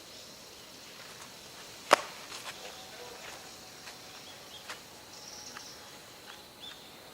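A single sharp crack about two seconds in, a ball's impact in a baseball game, followed by a few faint clicks and short high chirps over outdoor background noise.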